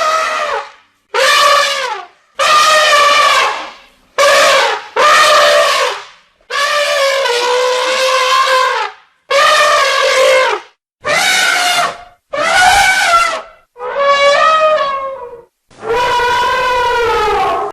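A wild animal's loud, horn-like calls, about ten in a row, each lasting one to two and a half seconds with short gaps between.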